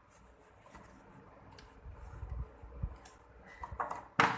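Faint handling noises and light knocks from working on a front-loading washing machine's parts by hand, ending in one sharp, loud clack about four seconds in.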